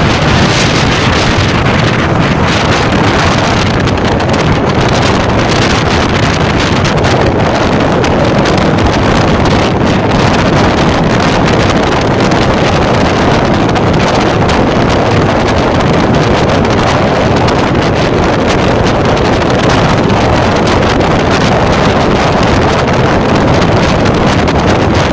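Strong wind rushing over the microphone at an open carriage window, mixed with the steady running noise of a moving passenger train.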